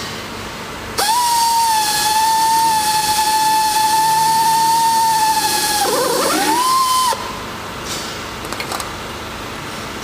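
A motorised tool whining at a steady high pitch for about five seconds; near the end the pitch wavers, dips and climbs back, then it cuts off suddenly.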